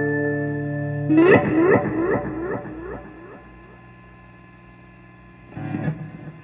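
Electric Telecaster guitar through an effects unit: a held chord dies away, then about a second in a gliding note repeats in quickly fading echoes. A short, quieter chord sounds near the end.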